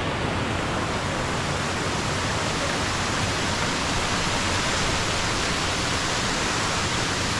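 River water rushing, a steady even hiss with no breaks or changes in level.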